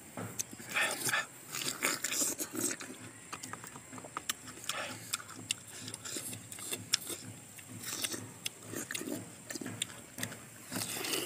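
Two people chewing and biting crisp, juicy star fruit close to the microphone: irregular wet crunches and smacking clicks.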